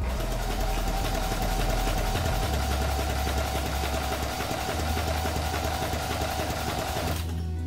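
Briggs & Stratton Vanguard V-twin lawn tractor engine with a straight-pipe exhaust, running steadily on one of its first runs after being swapped in. It cuts off suddenly about seven seconds in.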